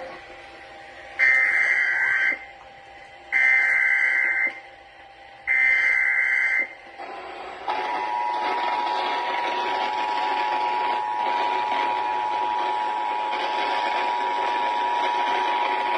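Emergency Alert System tones on a radio broadcast: three short data bursts of the SAME header, each about a second long and a second apart, then the steady two-tone attention signal held for about eight seconds over radio hiss. The tones open the relay of a flash flood warning.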